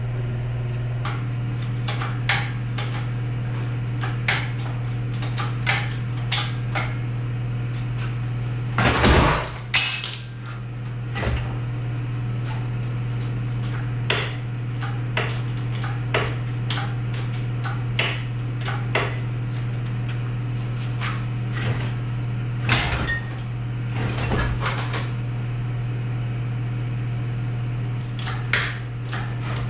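Hand tools clinking and knocking on metal in irregular clanks while the transmission mount bolts are undone, with longer scraping clatters about nine and twenty-three seconds in, over a steady low hum.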